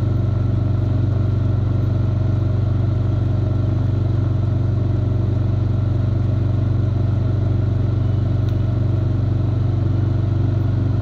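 Four-wheeler (ATV) engine running steadily while being ridden, a low, even drone that holds the same pitch throughout.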